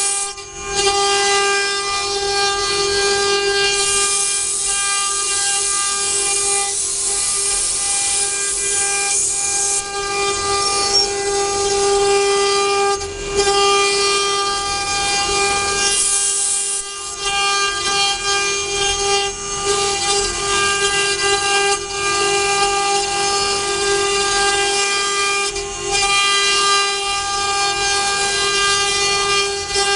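Multi-head CNC wood router working: its spindles run with a steady high-pitched whine made of several stacked tones, over the hiss of the cutters carving wood. The sound dips briefly a few times.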